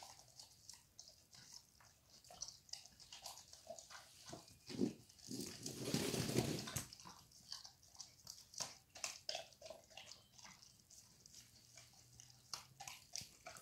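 A German Shepherd eating raw meat and fish from a metal pan: a run of short, wet bites and chewing crunches, with a louder, noisier stretch of chewing about six seconds in.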